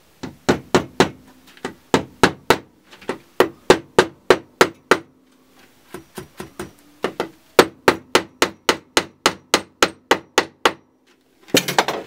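Claw hammer driving small nails through roofing felt into the wooden roof of a birdhouse: quick runs of sharp strikes, about three a second, separated by short pauses, with a few lighter taps in the middle. A brief rustle of handling near the end.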